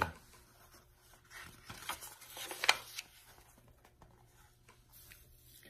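Page of a picture book being turned by hand: a soft paper rustle with a crisp flick of the page about two and a half seconds in.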